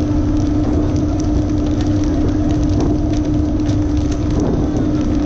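Fishing boat's engine running with a steady low hum, under a hiss of splashing water and scattered sharp slaps of tuna landing on the deck during pole-and-line fishing.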